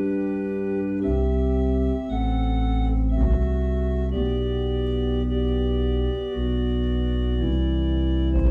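Church organ playing slow, held chords that change every second or two, with a deep bass line coming in about a second in.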